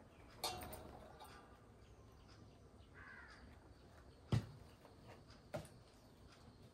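Light knocks and clinks of metal puja plates and vessels being handled on a table: three short strokes, the loudest a sharp knock about four seconds in. A single faint caw comes about three seconds in.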